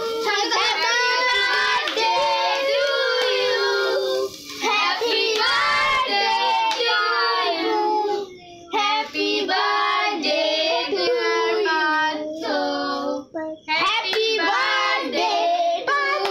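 Children singing together, with hand clapping.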